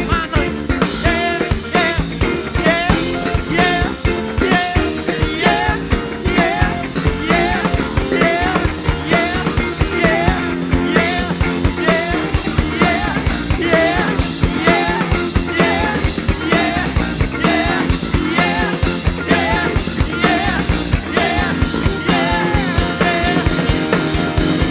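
Live rock band playing an instrumental passage: drum kit keeping a fast steady beat under electric guitar lines, bass and keyboards.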